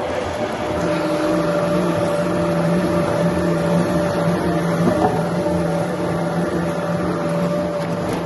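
Sawmill machinery running steadily, a constant motor hum with a few held tones over a noisy bed.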